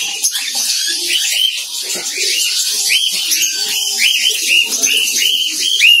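Several cockatiels calling over one another: a steady run of short, shrill, arched calls, about two to three a second.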